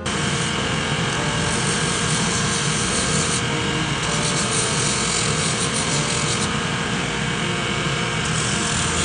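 Cobbler's finishing machine running, its spinning abrasive wheels sanding a rubber outsole and leather midsole for a resole. A steady motor run with a grinding hiss that turns brighter and harsher from about three and a half seconds in to six and a half, and again near the end.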